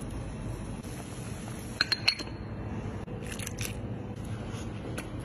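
Boiling water bubbling steadily in a pot, with a few sharp clinks of mussel shells and chopsticks against the pot about two seconds in and again around three and a half seconds.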